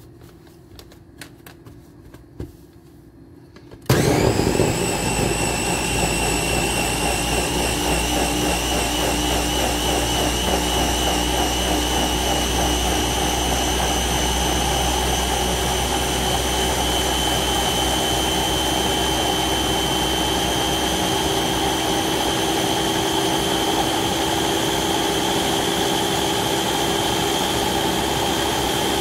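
Ninja blender's top-mounted motor head starting about four seconds in and running steadily, blending fruit, spinach and vegetables into a green juice. A steady hum with a high whine that creeps slightly up in pitch; a few light clicks before the motor starts.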